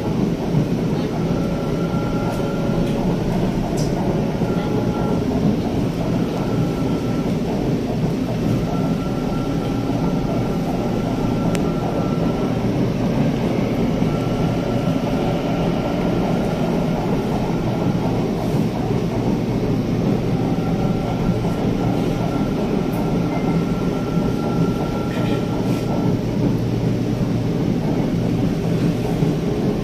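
Electric LRT Line 2 train running on its elevated track, heard from inside the carriage: a steady rumble of wheels and motors with a high whine that comes and goes every few seconds.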